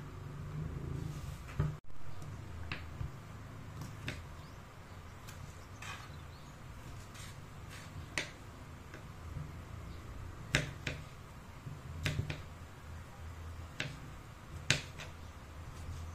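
Kitchen knife slicing tomatoes on a wooden cutting board: irregular sharp taps of the blade striking the board, with a louder knock near the start as the board is set down. A low steady hum of an electric fan runs underneath.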